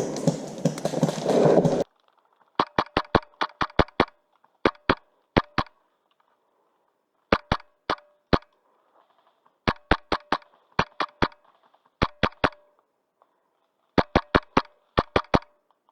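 HPA airsoft rifle, a Wolverine MTW, firing in short rapid bursts of two to five shots, about ten bursts in all, starting about two seconds in after a spell of rustling noise.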